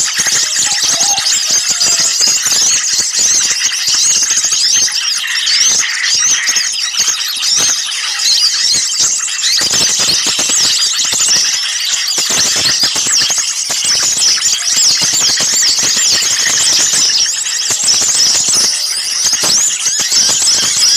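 Dense, unbroken chorus of many small songbirds chirping and calling at once, their high, rapid notes overlapping. It is a noisy, agitated mixed-flock lure recording of the kind bird-catchers play to draw small birds in.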